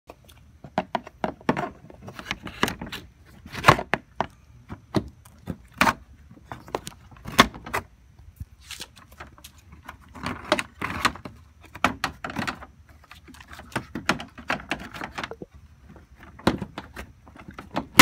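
Irregular clicks, taps and knocks of hands handling the plastic front grille and trim panel of a 2008 Subaru Impreza, with the sharpest knock a little under four seconds in.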